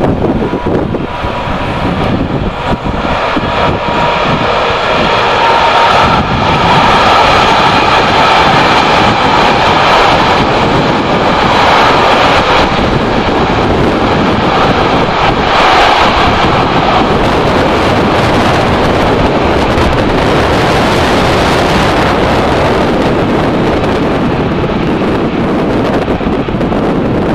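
A Green Cargo Rc4 electric locomotive and its long container freight train running past at a distance. A high, steady whine from the train fades out about two-thirds of the way through. Wind buffets the microphone throughout.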